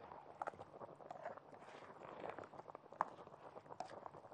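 Faint, irregular taps and scrapes of a spatula stirring rice in a pot of steaming, just-added water and broth, with one sharper knock about three seconds in.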